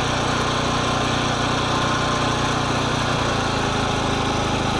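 Portable generator engine running steadily, powering the pipe-welding equipment. Its note shifts slightly about three seconds in.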